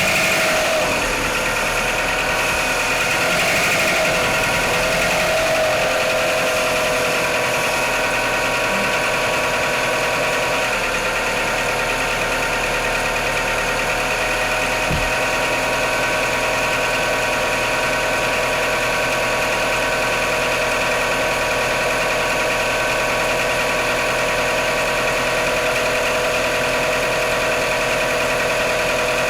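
Mitsubishi Outlander's 4G63 inline-four engine idling after a cold start, with the knocking noise the owner is showing. The idle settles slightly lower over the first few seconds, then runs steady.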